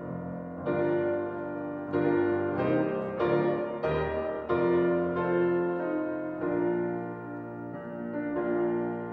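Solo piano playing a slow introduction in three-time, sounding full block chords at a moderate volume, with a new chord struck every second or so and some held longer.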